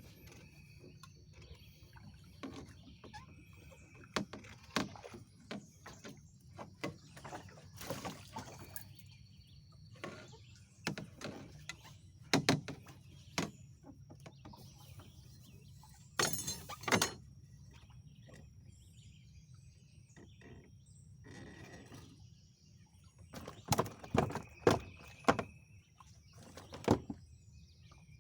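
Irregular sharp knocks and thumps, some in quick clusters, over a steady low hum.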